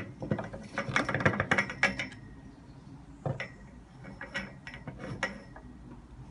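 A cat's paw and claws clicking, knocking and scraping against a pole where it passes through a hole in a wooden table. A quick flurry of clicks lasts about a second and a half, then single clicks come every second or so.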